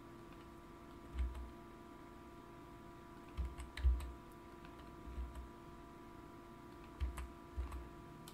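About six scattered computer keyboard keystrokes and mouse-button clicks, each short with a low thud, over a faint steady electrical hum.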